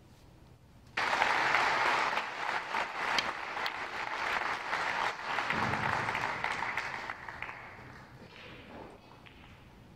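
Snooker audience applauding a shot. The clapping breaks out suddenly about a second in and dies away over several seconds.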